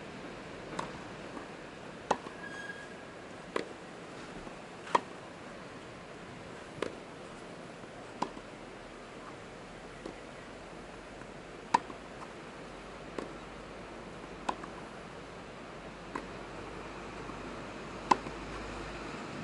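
Tennis rally: a sharp pop of ball on racket every one to two seconds, some loud and some fainter, over a steady hiss.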